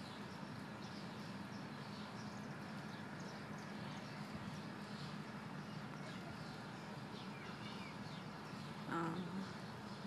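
Outdoor ambience: a steady low hum with faint, scattered bird chirps, and a short voice-like sound about nine seconds in.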